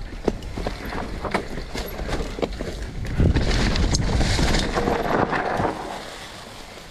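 Mountain bike rolling down a steep dirt trail covered in dry leaves: tyres crackling over the leaves and the bike rattling over bumps, with a louder rush of tyre and ground noise from about three seconds in that eases off near the end.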